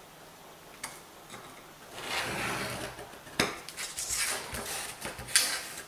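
A steel scriber scratching a line into marking-blue-coated sheet metal along a steel rule, starting about two seconds in. Then the steel rule is shifted across the metal sheet with several sharp metallic clicks and knocks.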